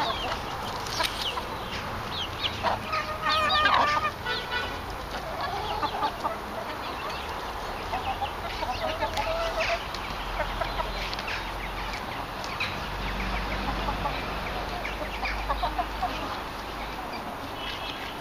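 A flock of hens clucking and calling to each other as they peck and feed, with a louder, drawn-out call about three to four seconds in.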